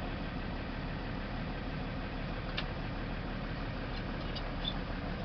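Heavy vehicle engine idling steadily, heard from inside the cab, with a few faint clicks.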